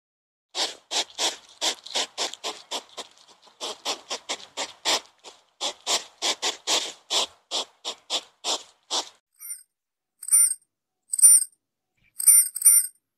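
A porcupine gnawing on tree bark: a fast run of rasping scrapes, several a second, that stops about nine seconds in. After it come about five short high chirps, the last two close together.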